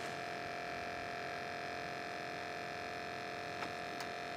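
Steady electric hum of a small motor, even in level throughout, with two faint ticks about three and a half and four seconds in.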